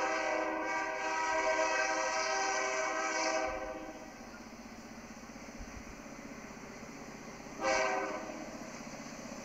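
Transap locomotive's air horn sounding several tones at once in a long blast that stops about three and a half seconds in, then one short blast near the end, over the steady running noise of the approaching train.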